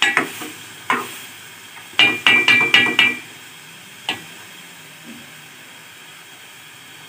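Spoon stirring cooked-down gajar ka halwa in a metal pot: a few scrapes, then a quick run of about five knocks against the pot with a short metallic ring two to three seconds in, and one more knock about a second later, over a low steady hiss. The halwa is at the frying stage, its milk and water dried off and the ghee coming out.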